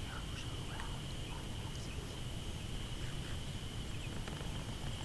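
Faint, scattered short bird calls over a steady high whine and a constant low rumble.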